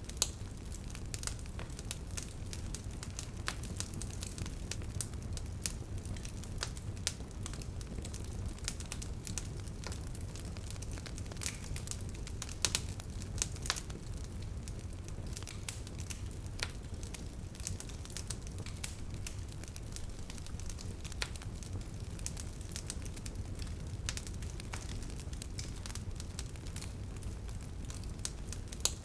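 Wood fire burning with irregular sharp crackles and pops over a steady low rumble of flame.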